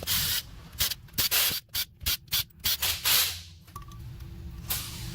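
A string of short hissing spray bursts into the jets and passages of a Rochester carburettor, about nine in quick succession and one more near the end, cleaning out an idle circuit whose jets are clogged.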